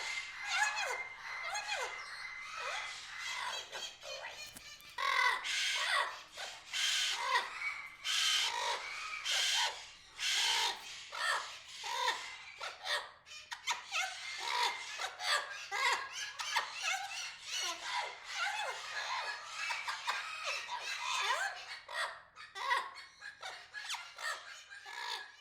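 A flock of aviary birds calling all at once: a dense, overlapping mix of short chirps and whistles with harsher squawks. The squawks are loudest for a stretch in the first half.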